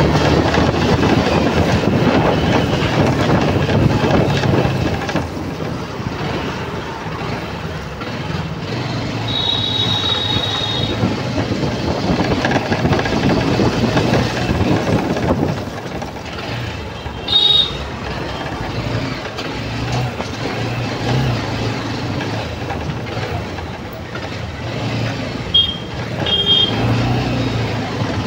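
Motorcycle under way in city traffic: the engine running with continuous road and wind noise. A few brief high-pitched tones sound about ten seconds in and again near the end, with a short knock just past the middle.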